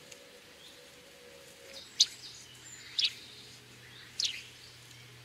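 Fly line and rod swishing through the air during false casts: three short, sharp whooshes about a second apart.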